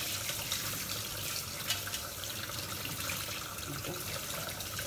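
Tap water running steadily into a kitchen sink, with a few light knocks.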